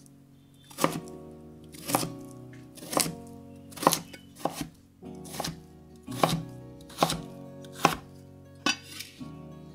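Santoku knife chopping a peeled raw potato on a bamboo cutting board: about ten crisp strikes, roughly one a second, as the blade cuts through and knocks the wood.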